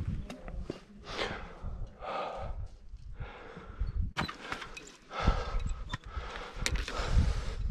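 A climber's heavy breathing, a breath roughly every second, on a steep chained rock ascent, with occasional sharp clicks and knocks and a low rumble underneath.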